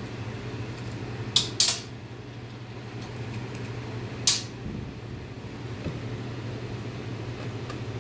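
Aluminum bait-mold halves clicking against each other as the mold is opened and handled: two sharp metallic clicks about one and a half seconds in, and another just past four seconds. A steady low hum runs underneath.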